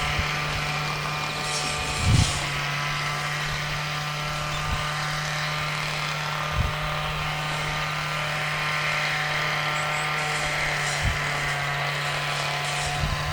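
Steady mechanical hum: a constant low drone with several steady higher tones over it, broken by a few soft low thumps.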